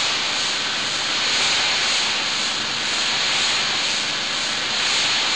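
Steady rushing hiss of washed PET bottle flakes pouring with air out of the steel discharge chute of a bottle crushing, washing and drying line. It swells and eases slightly as it runs.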